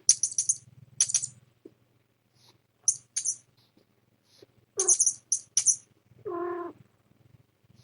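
Short, high rattling bursts come in quick groups of two to four, several times. A cat gives one brief, even meow about six seconds in, over a faint steady low hum.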